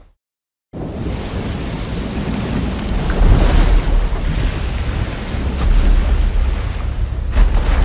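Giant-monster sound effect: a dense, deep rumbling wash of noise that starts after a short silence and swells brighter about three seconds in, with a few sharp crackles near the end.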